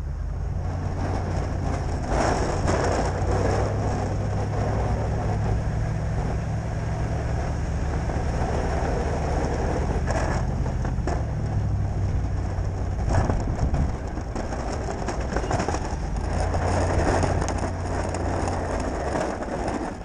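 Ford F-250 plow truck's engine running steadily as the truck drives through the snow, with a rushing noise of tyres and snow over it and a few light knocks.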